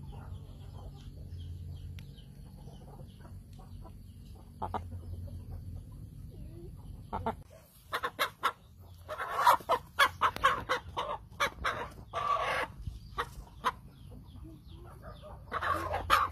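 Chickens clucking and squawking in loud, rapid bursts from about halfway on, after a quieter first half with only a low steady hum and scattered small sounds.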